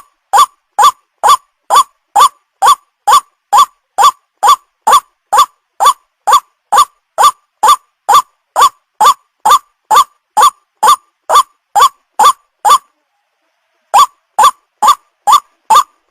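White-breasted waterhen lure call, played to attract young waterhens: a fast, even series of short calls, each rising in pitch, about two a second. The series breaks off for about a second near the end, then starts again.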